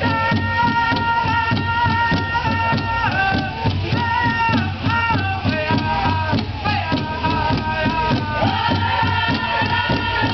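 Pow wow drum group singing in high, held voices over a steady beat struck together on a large shared drum. The sung line steps down in pitch phrase by phrase, then climbs back up for a new phrase near the end.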